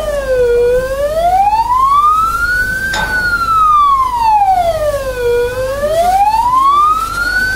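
Emergency vehicle siren wailing, its pitch sliding slowly down and back up, one full rise and fall about every five seconds.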